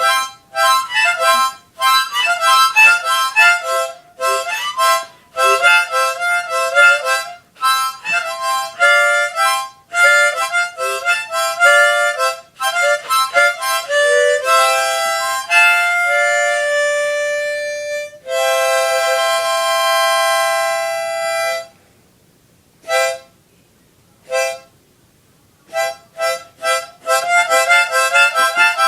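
Harmonica played in quick, choppy runs of chords, then one long held chord about two-thirds of the way through. A pause of a few seconds broken by two short blasts follows, and the quick playing starts up again near the end.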